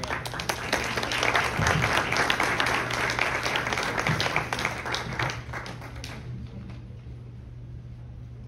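Audience applauding for about six seconds, then dying away.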